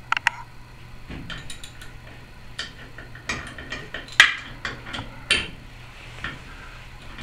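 Irregular light metallic clicks and clinks of tools and parts on a small engine's connecting rod as its two cap bolts are loosened and the crankshaft turned, with the loudest clink about four seconds in.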